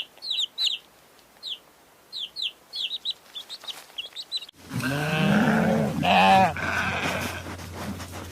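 Short high chirps from a small bird, several in quick uneven runs. About four and a half seconds in, a sudden cut to bleating livestock calls over a steady low hum.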